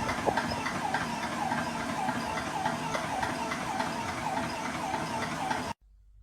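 Portable high-pressure PCP air compressor running with a loud, steady mechanical noise and a regular pulse about twice a second. It cuts off abruptly near the end, leaving a faint low hum.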